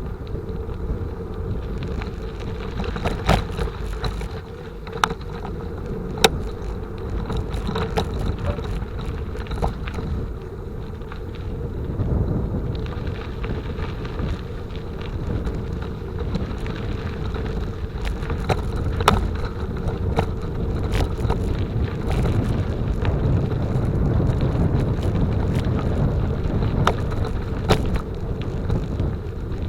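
Bicycle ride heard from the bike: a steady rumble of tyres and wind on the microphone, with scattered sharp clicks and rattles from the bike over bumps.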